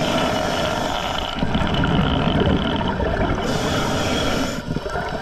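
Scuba diver breathing through a regulator, heard underwater: a hissing inhale, then a low rumble of exhaled bubbles about a second in, another inhale near the middle, and bubbles again near the end.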